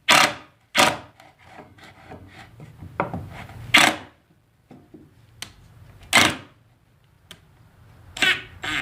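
Wooden pieces being handled and fitted together: a handful of separate sharp knocks with quieter scrapes of wood on wood between them.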